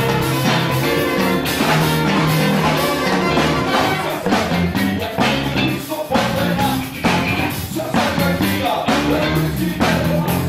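Live band music played on electric bass, electric guitar and drum kit, with a steady driving beat and a moving bass line.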